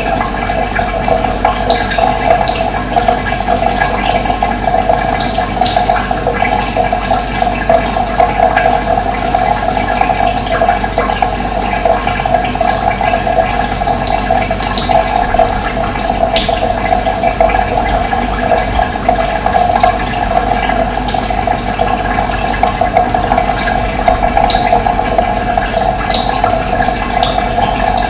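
Steady rushing of running water, an even, unbroken flow.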